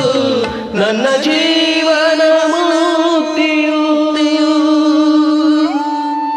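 Singing voice holding a long, steady note over the karaoke backing track of a Kannada bhavageethe, after a short slide down in pitch at the start.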